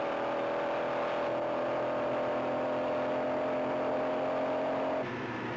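Car engine running hard at high speed, its steady whine rising slowly in pitch as it accelerates. The sound cuts off abruptly about five seconds in, giving way to a slightly quieter rush of engine and road noise.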